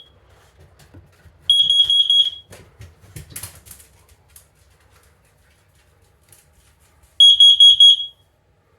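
Hallway smoke alarm's high-pitched piezo horn going off under a test: two short bursts of rapid beeps, one about a second and a half in and another near the end, each under a second long. Faint clatter of handling between them.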